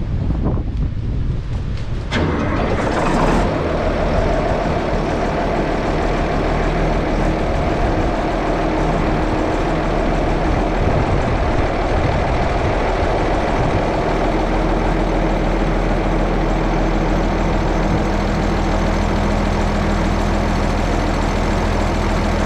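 An engine starts about two seconds in and then runs steadily at idle.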